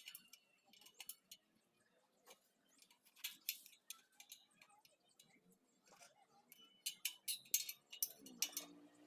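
Irregular light metallic clicks and ticks from hand work on the steel spokes of an old motorcycle wheel, coming in scattered clusters.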